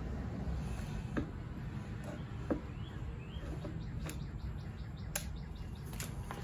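A few light clicks and knocks as a metal inverter case is set onto its mounting bracket and shifted into place. Birds chirp in the background.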